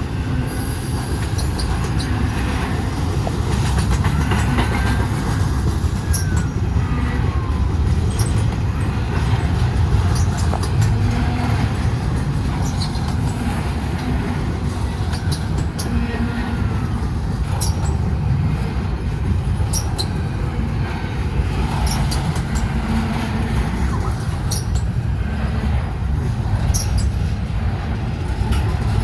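Intermodal freight cars rolling past close by as the train slows: a steady low rumble of steel wheels on rail, with scattered clicks and a few faint, brief wheel squeals.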